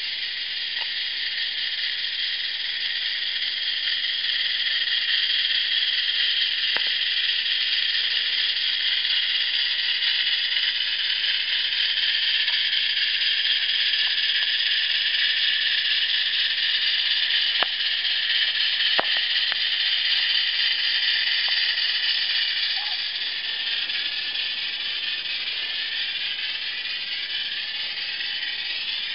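Live-steam Accucraft Shay geared locomotive working slowly under a heavy load, its exhaust through the chuffer chimney giving a steady hissing chuff. It gets louder as it passes close and eases again near the end, with a couple of sharp clicks about two-thirds of the way through.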